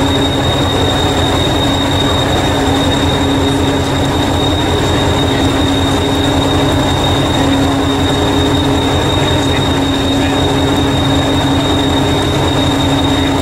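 Diesel engine of Hastings diesel-electric multiple unit 1001 idling: a steady low rapid pulse with a constant high whine over it.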